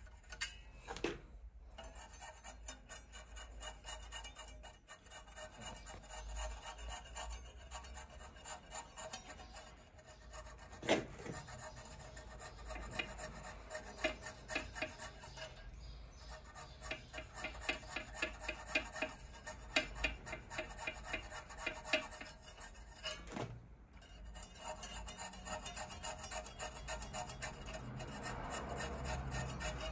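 Hand filing on a small fabricated clutch-cable part, taking off its sharp edge: rapid back-and-forth rasping strokes, with a few brief pauses.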